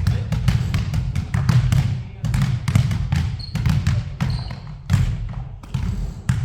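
Basketball being dribbled hard and fast in a ball-handling drill, a quick run of about three to four bounces a second, with a couple of brief high squeaks in the middle.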